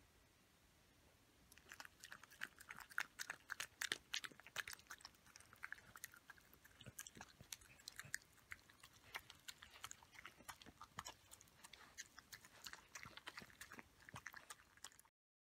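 Faint wet licking and chewing smacks of a dog eating soft scrambled egg and yogurt from a paper tray. The smacks are irregular and start about two seconds in, busiest for the first few seconds, then come more sparsely.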